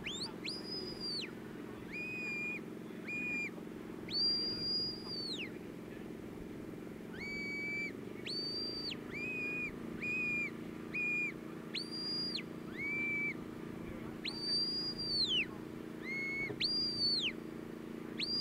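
Sheepdog handler's whistle commands: a run of about fifteen short, pure whistle blasts in a mix of high and lower notes, one held longer, each sliding up at its start. The commands steer the dog driving the sheep toward the gates.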